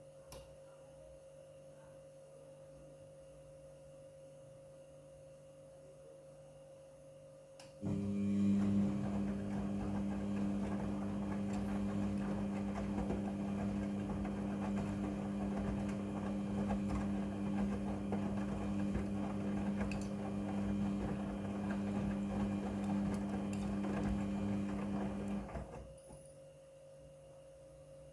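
Midea front-loading washing machine: a motor starts about eight seconds in, runs with a steady hum for about seventeen seconds, then stops suddenly. Before it only a faint steady tone is heard.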